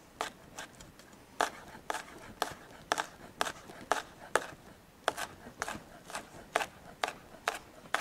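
Chef's knife slicing a green chile on a plastic cutting board: sharp, even knocks of the blade against the board, about two a second.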